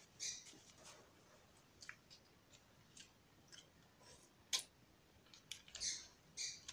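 Faint eating sounds: short slurps and mouth noises from someone eating cup noodles, with a sharp click about four and a half seconds in.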